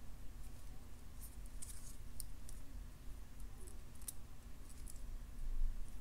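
Light, scattered clicks and ticks of small jewellery pliers working a thin metal wire head pin, the metal jaws and wire tapping against each other as the wire is gripped and bent.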